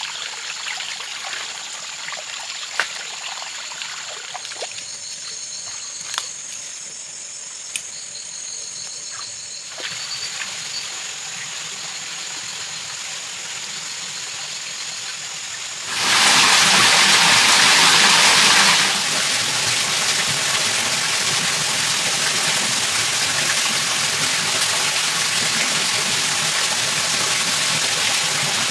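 Shallow forest stream trickling over rocks, with a steady high tone and a few sharp clicks. About halfway through it gives way abruptly to the much louder rush of a small cascade, loudest for the first three seconds and then steady.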